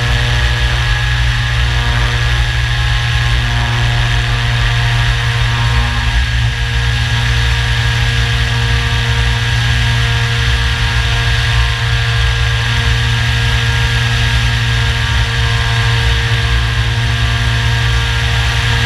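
Electric motor of a Radian Pro RC glider, a brushless motor spinning a nose propeller, running at a constant throttle with an even whine. It is heard from a camera mounted on the plane, under a heavy low rumble of wind from the airflow.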